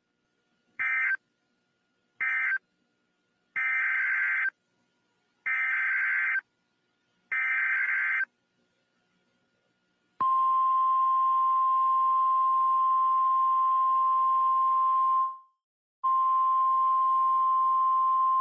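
Emergency Alert System signalling. First come two short screeching digital data bursts, ending the previous alert, then three longer bursts that form the SAME header of the next alert. From about ten seconds in, the NOAA Weather Radio 1050 Hz attention tone sounds as one loud steady tone, which breaks off for about half a second near fifteen seconds and then resumes.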